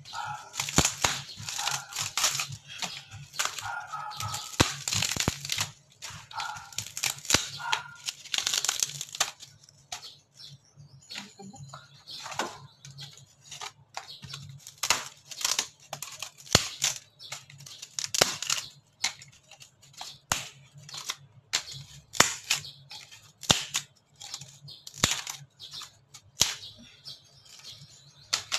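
Old dry wooden ceiling planks being broken up by hand: a dense run of splintering and tearing wood for about the first ten seconds, then separate sharp cracks and snaps, a second or so apart.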